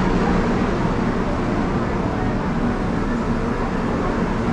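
Mine-train roller coaster cars rolling along the track, a steady running noise from wheels and rails.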